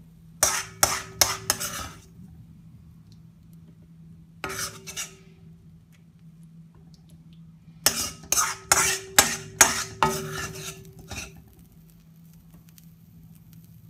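Metal spoon scraping and clanking around the inside of a karahi (a steel wok-shaped pan), gathering the last of the curry sauce. It comes in quick runs of strokes: about four near the start, a single one about four seconds in, then about eight from about eight to eleven seconds. A steady low hum runs underneath.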